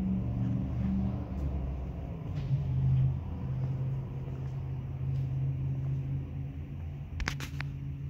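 Ford F-550 Super Duty's Power Stroke V8 turbodiesel idling steadily, a low rumble. A few sharp clicks come near the end.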